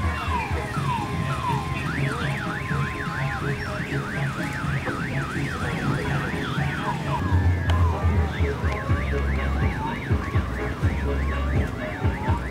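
An electronic siren warbling rapidly up and down, about three times a second, after a few repeated falling sweeps; it breaks off briefly about seven seconds in and then starts again. A steady low hum runs underneath.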